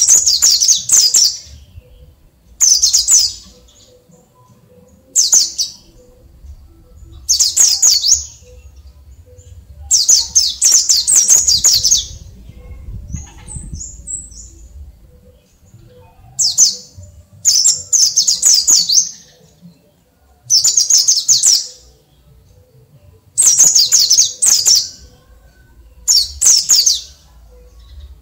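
Caged pleci of the Dakun Bali type (a white-eye) singing in the natural 'ngalas' style, undoped. Its song comes as high, rapid twittering phrases of one to two seconds, repeated every couple of seconds.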